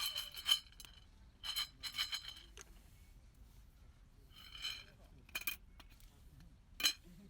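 Several short bursts of metallic clinking and rattling, with a sharper single clink near the end.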